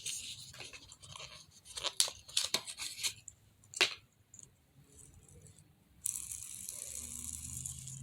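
Plastic blister packaging being worked open by hand, crinkling and cracking in a run of sharp crackles over the first few seconds. A faint steady hiss starts about six seconds in.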